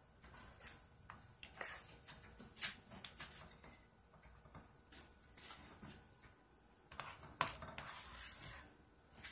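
Spatula scooping thick hot-process soap out of a crock pot and spreading it into a loaf mold: soft scrapes and irregular clicks of the spatula against the crock, with two louder knocks, near 3 seconds in and about 7.5 seconds in.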